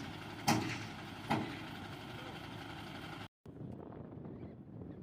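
Truck engine running steadily, with two sharp knocks less than a second apart in the first second and a half, continuing a regular series of knocks. About three seconds in the sound cuts out for a moment and gives way to a quieter stretch.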